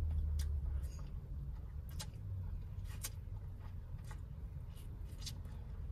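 Eating sounds from a seafood boil eaten by hand: soft mouth clicks and smacks about once a second, over a low steady hum that eases after the first second.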